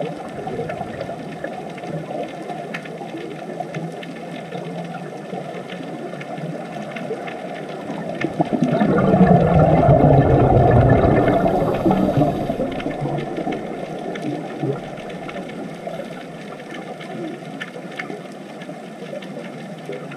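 Muffled underwater ambience: a steady low rush of water that swells into a louder, deeper rumble for a few seconds about halfway through.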